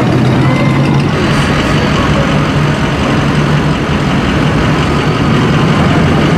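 Lifted pickup truck engines running in slow, crawling street traffic: a steady low rumble over a constant traffic hum.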